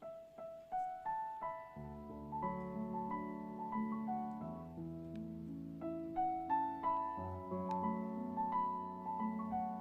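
Gentle piano music: a melody of single notes, with lower notes joining in about two seconds in.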